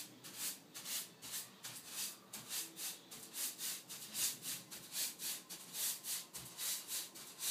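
Paintbrush bristles swishing across the wet-painted slats of a louvred door in quick, even back-and-forth strokes, about three a second. This is the brush laying off the wet paint across the louvres so that no heavy paint or drips are left.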